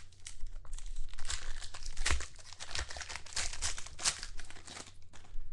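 Foil wrapper of a Panini Prizm football card jumbo pack being torn open and crumpled by hand: a dense run of crinkling and tearing.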